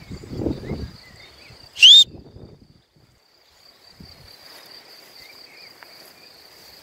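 Insects chirring steadily in the meadow grass, with one short, loud rising whistle about two seconds in. Some low rumble of wind on the microphone in the first second.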